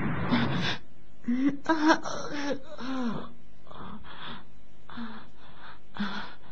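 A cartoon character's voice making a run of breathy gasps and grunts, with a few short wavering vocal cries about a second in, and no words.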